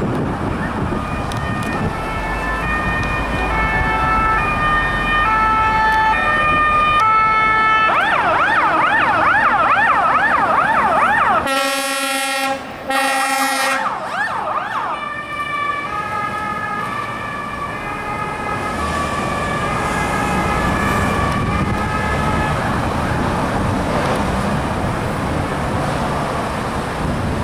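Fire engine sirens sounding in two-tone, alternating high and low, switching to a fast warbling yelp about eight seconds in. Around twelve seconds two loud horn blasts cut through, then the yelp and the two-tone return, over the engines and traffic.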